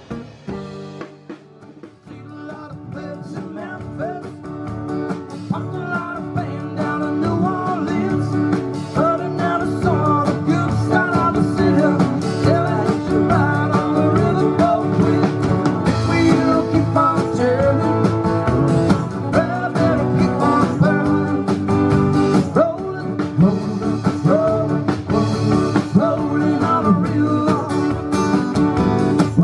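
Live acoustic rock band playing: two strummed acoustic guitars with drums and a male lead vocal. The music is soft for a moment near the start, then builds and gets louder.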